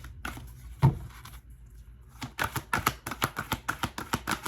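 A deck of cards being shuffled: a single thump about a second in, then a quick run of sharp snapping clicks through the second half.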